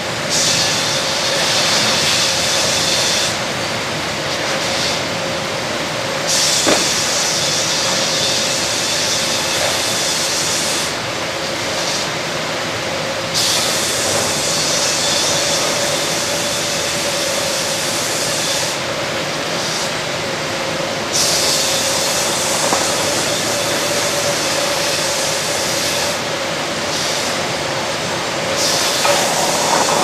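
McDonough band headrig and carriage sawing a log: a steady machine hum, with a high hiss that swells for a few seconds at a time, about five times, as the band saw makes its cuts.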